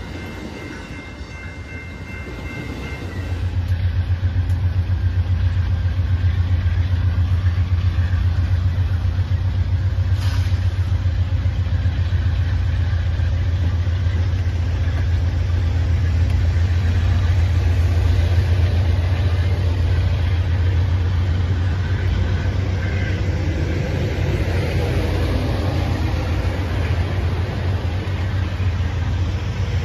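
A train passing: a steady low rumble that grows louder about three seconds in and holds.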